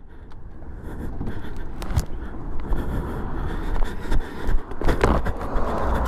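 Car traffic passing on a highway, a rush of tyre and engine noise that builds after about a second, with a few sharp knocks.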